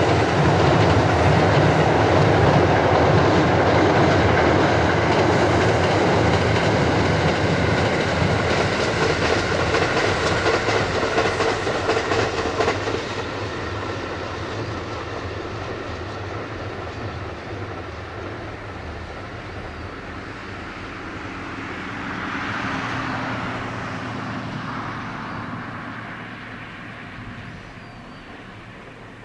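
Kintetsu Series 21000 Urban Liner electric express train crossing a steel truss railway bridge: a loud rumble with dense clatter of wheels on the rails. After about 13 seconds it begins to fade as the train moves off the bridge and away, swelling briefly once more near the end before dying down.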